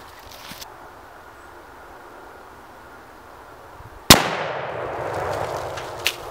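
A single .30-06 rifle shot about four seconds in, striking a lime on a stump, with an echo that rolls away over about two seconds. A short sharp tick comes near the end.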